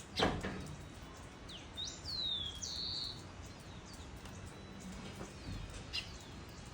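Wild birds calling: a few short whistled notes that sweep up and down, clustered about two seconds in, with another faint call near the end, over a steady background hiss. A sudden sharp sound, the loudest thing here, comes right at the start.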